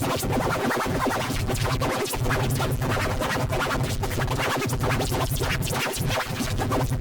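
Loud, busy electronic music with scratchy, chopped sounds over a bass that cuts in and out.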